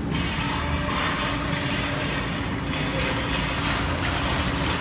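Steady background din of an arcade, an even noise with a constant low hum and no distinct clicks or knocks.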